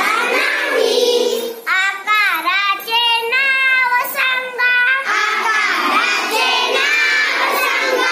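Young children singing a Marathi song about geometric shapes, with several long held notes in the middle.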